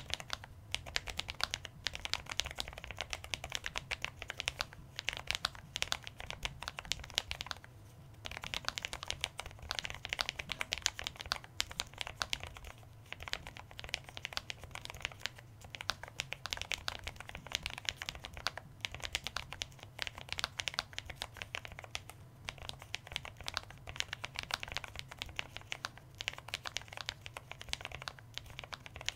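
Continuous fast typing on a Lofree Edge gasket-mounted, low-profile mechanical keyboard with Kailh POM 2.0 switches and stock PBT keycaps: a dense run of keystrokes, broken by a few short pauses.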